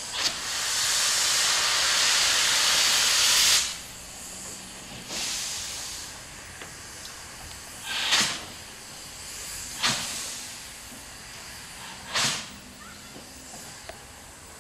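Steam tank locomotive (ex-Yugoslav Railways class 62, a USA-class tank design) letting off a loud hiss of steam for about three seconds, then a shorter puff and three sharp exhaust chuffs about two seconds apart as it works slowly.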